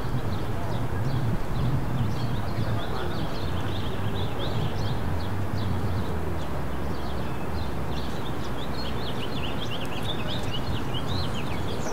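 Many small birds chirping in quick, high calls, busiest in the second half, over a steady low rumble of city traffic.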